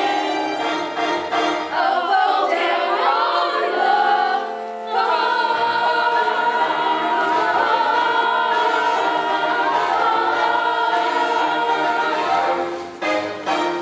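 Choir singing the close of a song with accompaniment, holding long sustained chords, the last one cut off near the end.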